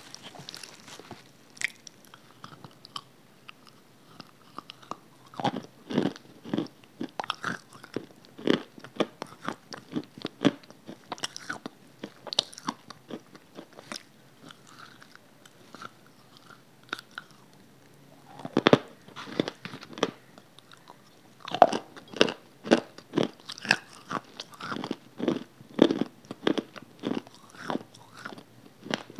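Close-miked biting and chewing of a dry, crumbly grey block: crisp crunches and crackles with each bite and chew. It is quieter through the middle, then a run of louder crunching fills the last third.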